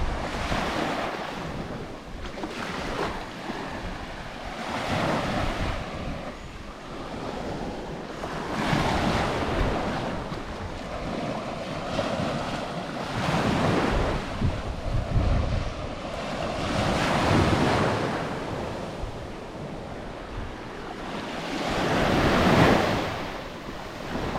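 Small waves breaking and washing onto the shore, swelling and fading about every four seconds, with wind buffeting the microphone.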